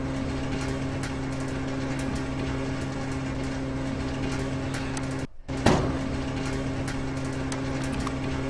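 Simulated motor hum of a Factory I/O turntable roller conveyor driving a box off the turntable, a steady, even drone. It cuts out briefly about five seconds in and comes back with a knock.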